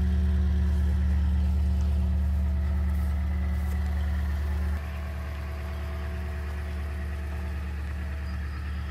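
Pickup truck engine idling steadily with a low, even hum that drops a step in level about halfway through.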